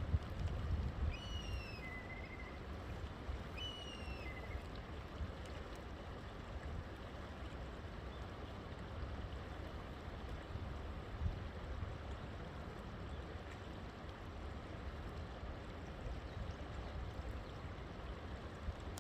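River water rushing and gurgling steadily. A bird gives a few short, falling whistled calls in the first five seconds.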